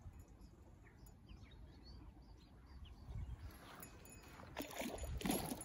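Outdoor lakeside ambience: a low wind rumble with a few faint bird chirps. Rustling and handling noise grows louder near the end as the camera holder starts moving through the grass.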